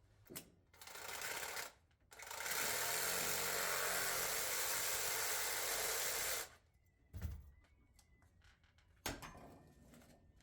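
A power tool runs briefly, then runs steadily for about four seconds and stops, followed by two knocks.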